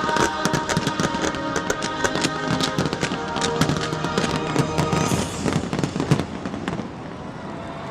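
Aerial fireworks shells bursting in rapid succession, a dense run of bangs and crackles that thins out near the end.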